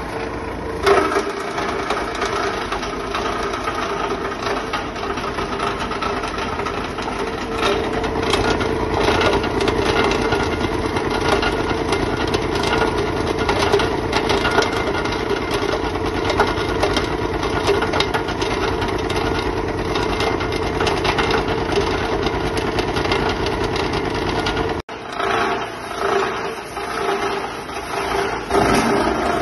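A multi-material shredder's rotor knives, driven by a 15 hp motor, run with a steady hum and a dense rapid clatter as they chop fabric fed into the hopper. The sound breaks off for an instant about 25 seconds in and comes back more uneven.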